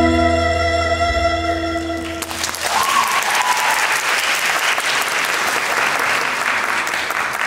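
A pop song's backing track ends on held notes about two seconds in, then a hall audience applauds steadily.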